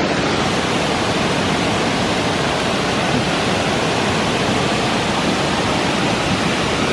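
Steady rushing roar of Bond Falls, a wide cascading waterfall, with the river running high.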